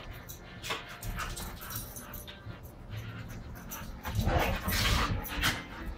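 Two Australian Shepherds chasing and play-fighting on a tile floor: claws clicking and skidding, with bumps and scuffles. The scuffling is loudest from about four seconds in.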